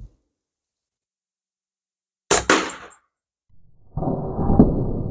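An air rifle shot, a sharp crack with a quick second report, then about a second and a half later a small reactive exploding target going off: a louder bang with a rumble that dies away slowly.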